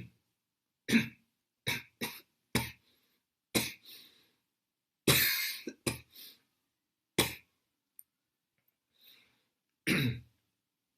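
A person coughing again and again: about a dozen short coughs, some single and some in quick pairs, with complete silence between them. One longer cough comes about five seconds in.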